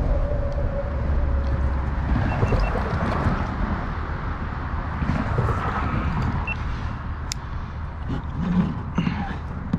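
Wind buffeting the microphone, a steady low rumbling noise, with a few short clicks and knocks of fishing gear being handled in a kayak near the end.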